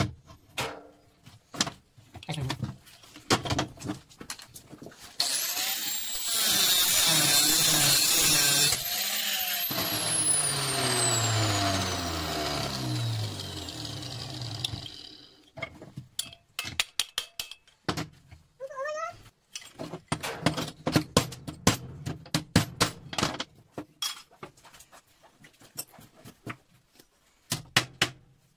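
Metal hammer blows and knocks on a scrap electric motor's copper-wound armature clamped in a steel bench vise. In the middle, a power tool runs for about ten seconds, and its pitch slides down before it stops. Quick strings of blows follow.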